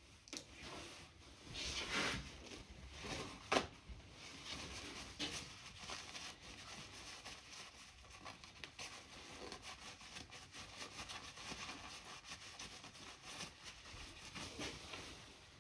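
Paper towel rustling and rubbing as an air rifle's piston is wiped clean by hand, with one sharp click about three and a half seconds in.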